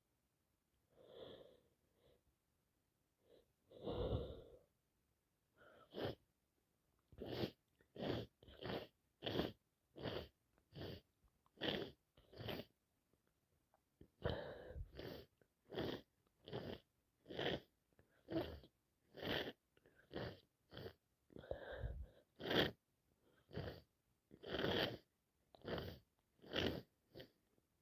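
A woman with a heavy, congested head cold sniffing hard again and again through her nose. After a couple of longer breaths in the first few seconds come short, sharp sniffs about two a second.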